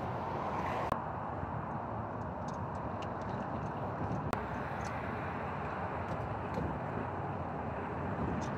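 Steady open-air background noise, with a few faint metallic clicks as lug nuts are spun off a jacked-up car wheel by hand.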